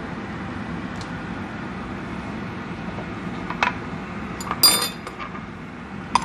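Sliced green chillies frying in oil in a nonstick pan, a steady low sizzle. A few light clicks break in, and about four and a half seconds in comes a bright, ringing clink of kitchenware.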